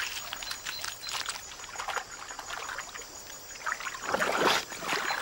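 Water trickling and lapping around giant otters in shallow water, dotted with short crackly crunches of an otter chewing a fish. A louder splash comes about four seconds in.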